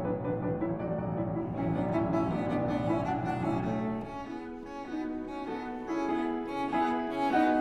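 Background music with long held notes; the lower notes drop away about four seconds in.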